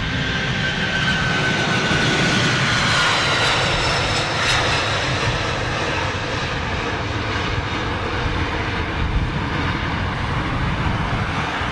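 Jet airliner's engines at takeoff power during its departure run: a steady low rumble with a high whine that slides down in pitch over the first few seconds.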